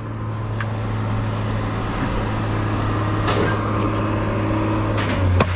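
A steady low drone from a running engine, with a few short knocks and clinks of metal, the sharpest near the end.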